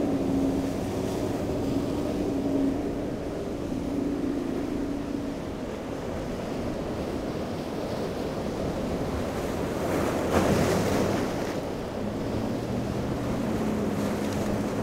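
Outboard motors on boats running through rough inlet surf, heard over breaking waves and wind buffeting the microphone. The engine tone fades after about five seconds and comes back near the end, and there is a louder rush of surf about ten seconds in.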